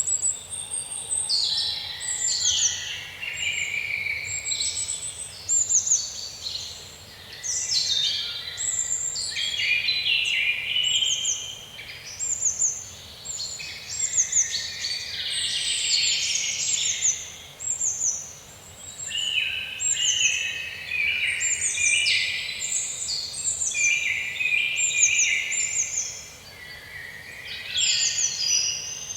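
Many small birds chirping and twittering at once, a dense, continuous chorus of quick high chirps and short falling notes.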